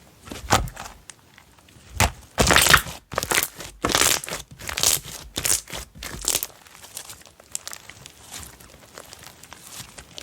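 Slime being squished, poked and stretched by hand, giving irregular crackly, squelchy sounds that are loudest in the middle and soften over the last few seconds.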